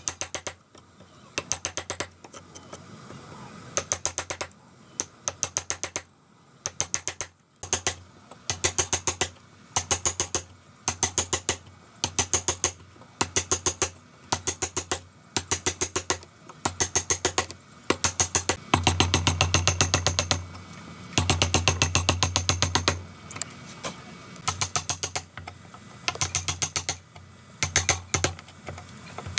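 Wood chisel being struck in quick bursts of several sharp taps, about one burst a second, chopping out a mortise in a timber beam. For a few seconds past the middle the taps run together almost without a break.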